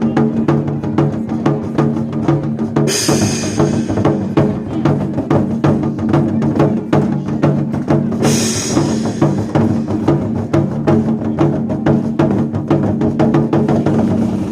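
Taiwanese war drums (zhangu) beaten in fast, dense strokes over a backing track with a steady low sustained tone, with two bright crashes about three and eight seconds in.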